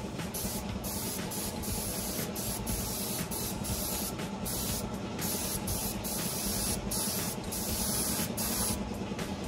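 Paint spray gun hissing steadily, with brief dips now and then, over a low steady hum.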